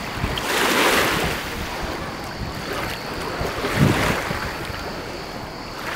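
Small waves washing in over a pebble shore, the wash swelling about a second in and again around four seconds in.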